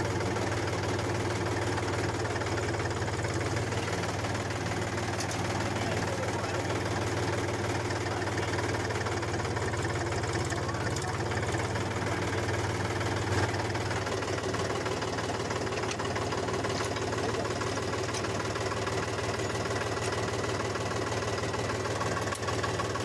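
Mini tractor's engine running steadily at idle with a low, even note; there is a brief louder knock about halfway through.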